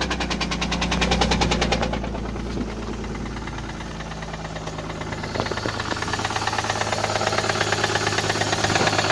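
BMW M54 straight-six petrol engine running with a heavy, regular knock from a broken connecting rod. The knocking is loud at first, eases about two seconds in, and builds again after about five seconds.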